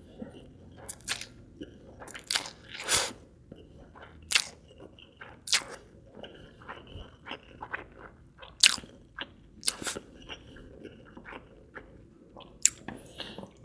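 Close-miked eating sounds of someone chewing and biting spicy Indomie Mie Goreng fried noodles and egg: irregular wet mouth clicks and smacks, several a second, with sharper bites now and then.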